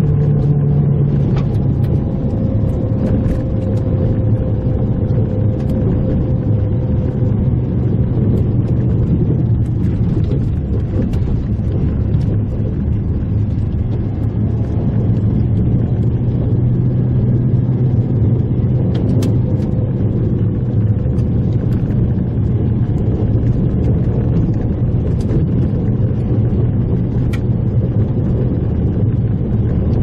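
Mitsubishi Pajero Mini driving steadily along a rough unpaved road, heard from inside the cabin: the engine holds an even note over the low rumble of the tyres on gravel and dirt, with a few faint ticks.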